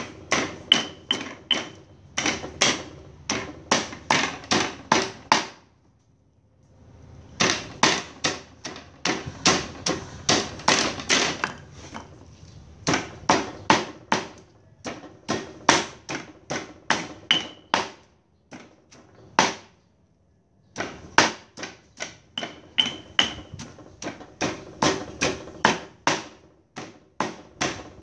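Stone pestle pounding a wet herb-and-garlic paste in a stone mortar, sharp knocks about three a second in runs. The pounding stops twice for a second or two.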